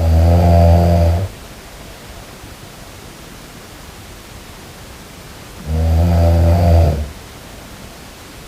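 Snoring: two long, low snores about six seconds apart, the first just at the start and the second near the end, over a steady hiss.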